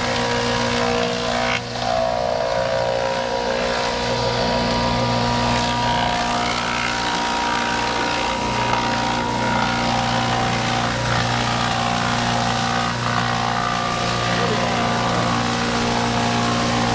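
Lumber planer running steadily while dressing boards, a constant machine drone with several steady tones and a brief dip about a second and a half in.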